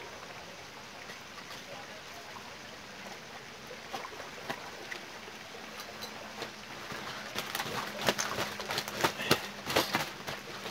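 A hooked fish splashing and thrashing at the water's surface as it is brought to the landing net: irregular sharp splashes start about seven seconds in, after a stretch of faint steady background noise with a low hum.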